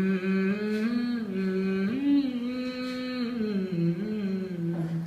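A man humming a slow, wordless melody without accompaniment, in long held notes that glide from one pitch to the next.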